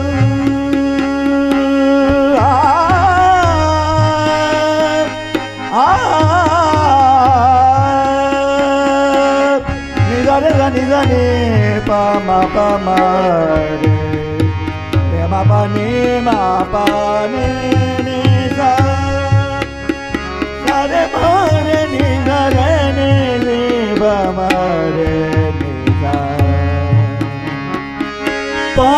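Devotional bhajan: a male singer's long, drawn-out phrases with wavering pitch slides over harmonium and tabla, the tabla keeping a steady beat.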